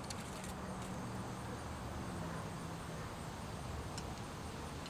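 Faint clicks and taps from handling metal camera-rig parts, a few in the first half second and one about four seconds in, over a steady background hiss.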